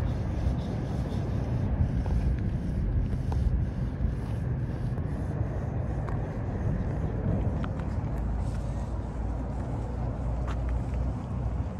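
Outdoor city ambience: a steady low rumble of traffic and air, with a few faint clicks.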